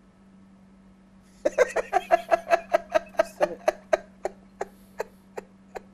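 A man laughing: a run of short 'ha' pulses, about four a second, that starts about a second and a half in, then slows and fades away.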